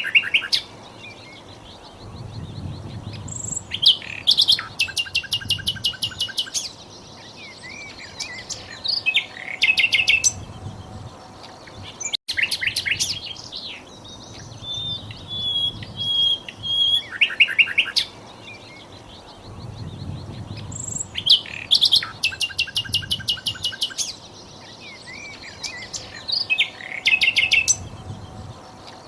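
Sikatan londo song: a held high whistle, then a fast, even trill of repeated notes and scattered high chirps, the phrase repeating several times. The recording breaks off for an instant about 12 seconds in and the same sequence starts again, as a looped training track.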